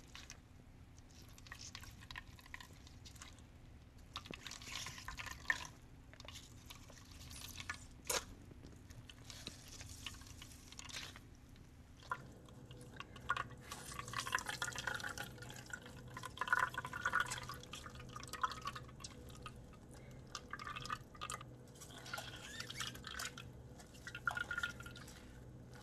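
Faint, irregular dripping and trickling of homemade oat-almond milk into a bowl as a cloth nut-milk bag is squeezed by hand to strain it.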